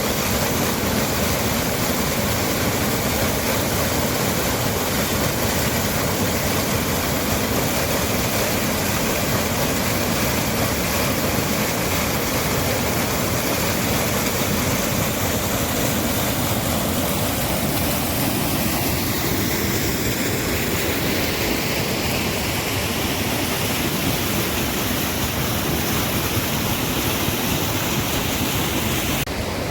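Waterfall: a loud, steady rush of falling water. The sound shifts slightly just before the end.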